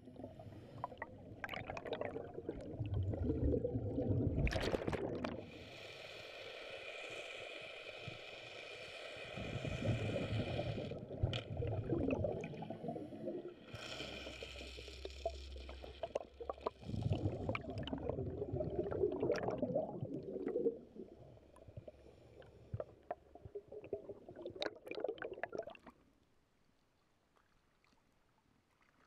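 Underwater breathing of a scuba diver: hissing inhalations through the regulator alternate with rumbling bursts of exhaled bubbles every few seconds. It falls almost silent near the end.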